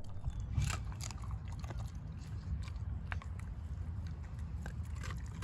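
An American Staffordshire Terrier eating, chewing and crunching its food in irregular quick bites.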